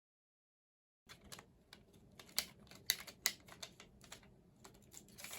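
Packaging being handled and opened by hand: an irregular run of sharp clicks and crinkles, with a few louder snaps, starting about a second in after dead silence.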